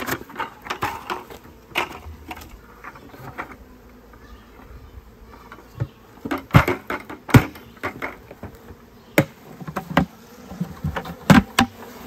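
Honeybees buzzing inside a homemade bee-vacuum bucket as the plastic bucket is tipped and its lid insert lifted, with a scatter of sharp plastic knocks and clunks, the loudest about halfway through and near the end.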